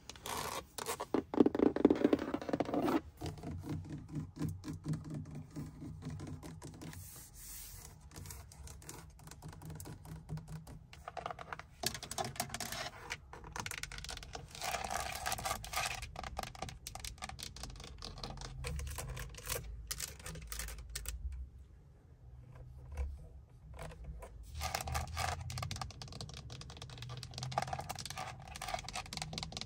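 Long fingernails tapping and scratching on a Mercedes-Benz car interior: rapid clicky taps, loudest in the first three seconds, then softer runs of fast tapping on the steering wheel's plastic hub that come and go.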